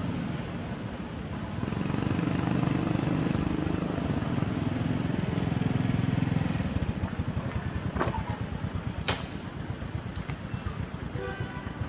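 A low engine rumble, as of a passing motor vehicle, swelling about two seconds in and fading after about seven seconds, with a sharp click about nine seconds in.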